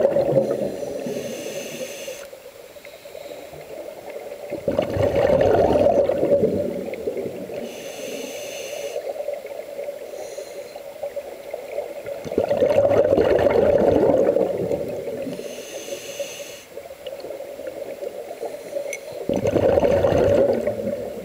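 Scuba diver breathing through a regulator underwater: a short high hiss on each inhale, then a bubbling rumble as the exhaled air escapes, in a slow cycle of about seven seconds, three times.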